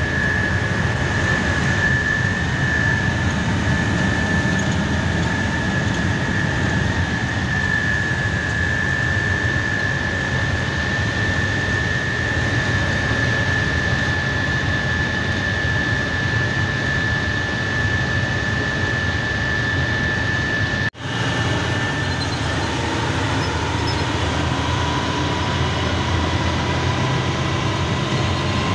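Heavy truck driving at highway speed, heard inside the cab: a steady engine drone and road noise with a constant high whine over it. About two-thirds of the way through, the sound drops out for an instant and comes back with a fainter whine that slowly rises in pitch.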